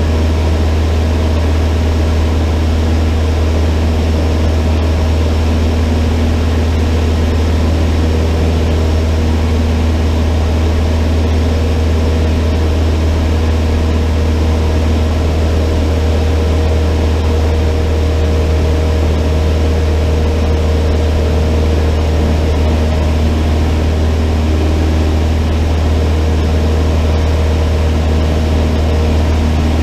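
Cessna 152's four-cylinder Lycoming O-235 engine and propeller running in flight, a loud, even drone that holds steady throughout.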